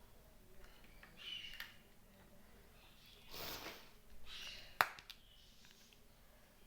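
Quiet handling of small plastic toy kitchen pieces: a few soft rustles and scrapes, with one sharp click about five seconds in.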